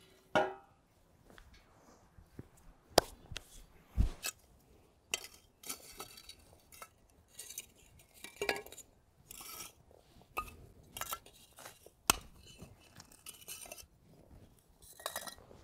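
Scattered clinks and knocks of a steel shovel blade being set down and shifted on a stack of bricks.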